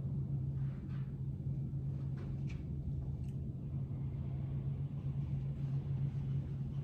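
Classroom room tone: a steady low hum with a few faint clicks.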